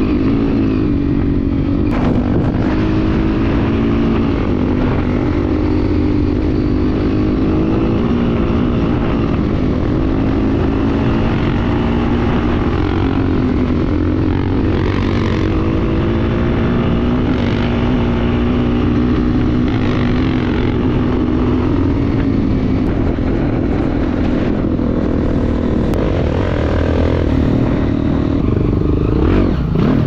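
Single-cylinder trail motorcycle engine running steadily under way, its pitch rising and falling gently with the throttle, with a few brief knocks.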